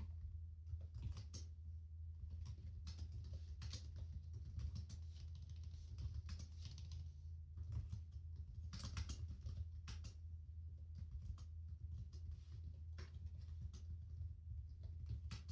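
Typing on a computer keyboard: irregular runs of soft key clicks, some in quick flurries, over a steady low hum.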